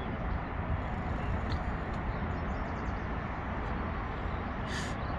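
Steady low outdoor background rumble with no distinct events, and a short high hiss near the end.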